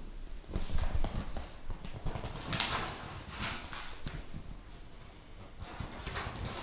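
Dried angelica root being shaken out of a paper bag into a cloth hop bag: crinkling paper and dry pieces rattling in several short, irregular bursts.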